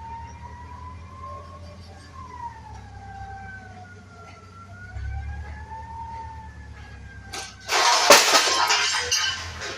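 A siren wailing, its pitch slowly rising and falling, over a steady low hum. About eight seconds in, a loud rushing noise lasting about two seconds drowns it out.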